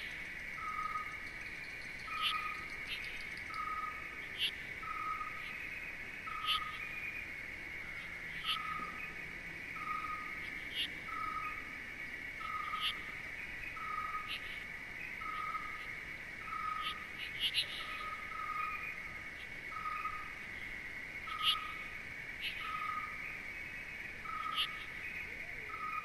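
Outdoor wildlife soundscape: a steady high buzz under a short call repeated evenly, a little slower than once a second, with scattered short high chirps every couple of seconds.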